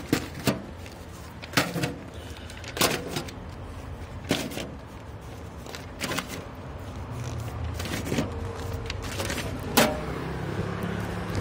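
About eight sharp clacks or knocks at uneven intervals of roughly one to two seconds, over a low steady hum that grows slightly louder in the second half.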